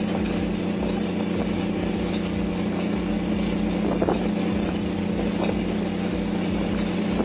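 Steady drone of a squid-jigging boat's machinery running, with the rush of water along the hull and a few short knocks, about four and five and a half seconds in.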